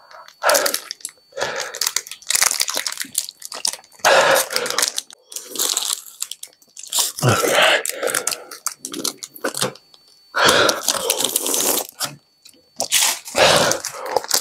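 Close-up mouth sounds of licking, sucking and biting a frozen ice pop, in repeated bursts of a second or two.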